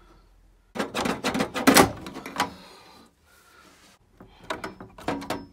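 Plastic clips and fittings inside a Baxi 600 combi boiler being unclipped and pulled off by hand: a run of sharp clicks and rattles about a second in, and another shorter run near the end.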